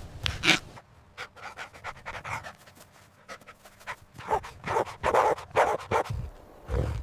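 Dog panting: a run of quick, breathy breaths, faint at first and louder from about halfway through.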